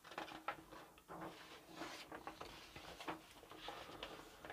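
Faint scattered clicks and soft rustles in a quiet small room.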